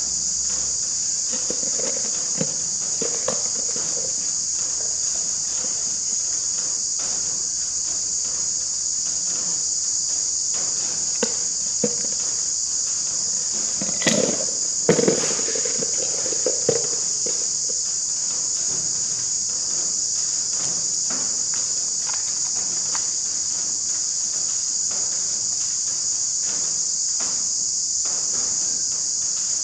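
A steady, high-pitched chorus of insects. Faint scattered clicks of small metal parts being handled are mixed in, with a brief cluster of light knocks about halfway through as timing-cover bolts are fitted by hand.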